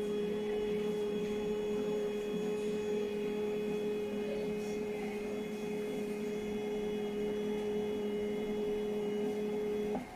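Motor of a TBK958A laser marking machine's autofocus running, a steady electric hum with a low tone and a higher tone that cuts off sharply near the end as the focusing stops.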